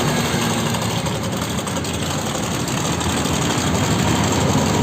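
Honda Vario scooter engine idling with a steady rattling knock ('klotok klotok'). The noise is most likely from a worn automatic cam chain tensioner rather than the con-rod or piston.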